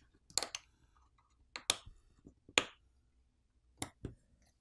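Sharp plastic clicks and snaps, four louder ones spread over a few seconds with fainter ticks between, as a plastic pry tool pops a smartphone's loudspeaker assembly loose from the midframe.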